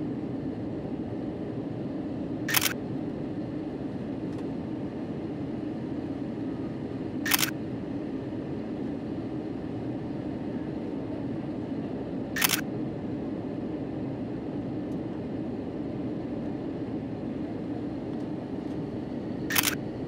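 Camera shutter clicking four times, about five seconds apart, over a steady low rumble.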